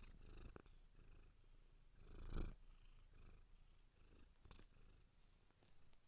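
Domestic cat purring faintly: a low, steady rumble, with a brief louder rush of noise about two seconds in.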